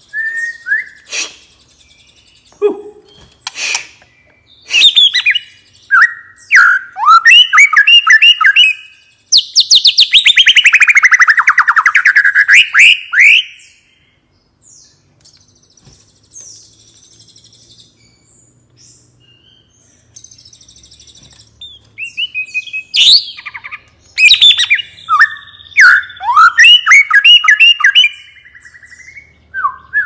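White-rumped shama (murai batu) singing a relaxed, varied song of whistled and trilled phrases. About ten seconds in comes a long rapid trill falling in pitch, then a pause of several seconds, and from about twenty-two seconds on more fast whistled phrases.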